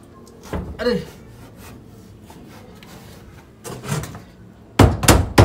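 Faint scuffing, then a quick run of loud knocks on wood near the end: a hole being knocked through a roof timber to pass a water pipe.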